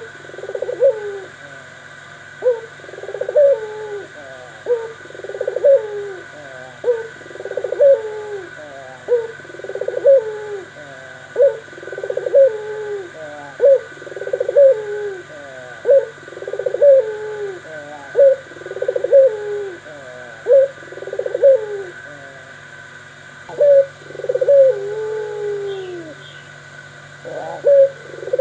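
A bird called 'pelung' gives short cooing calls about once a second, each falling in pitch. Near the end come a few longer, slower falling calls. A faint steady hum runs underneath.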